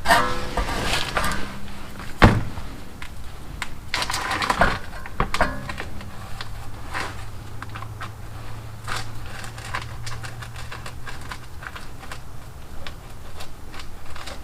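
Metal tools clicking, scraping and tapping on a brake caliper while its parking brake cable is worked free, with one sharp knock about two seconds in. A low steady hum runs through the middle.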